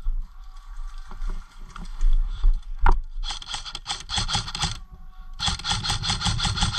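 Cybergun Colt M4 airsoft electric gun (AEG) firing two full-auto bursts, a rapid even rattle of shots, the first about a second and a half long and the second longer. A single sharp click comes shortly before the first burst.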